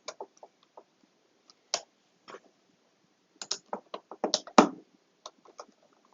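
Scattered small clicks and taps of hands working M3 screws and panel parts, trying to get the screws to grab. The taps come in a denser run past the middle, with one louder knock about four and a half seconds in.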